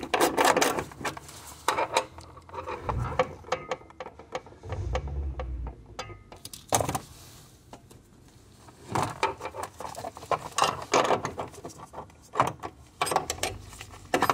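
Runs of rapid metallic clicking from a hand ratchet and spanner turning the lock nut on an accelerator pedal stop screw, with a quieter stretch in the middle before the clicking picks up again.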